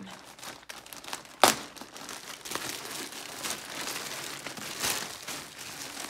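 Plastic poly mailer being crinkled and torn open by hand, with an uneven crackling and one sharp tear about a second and a half in.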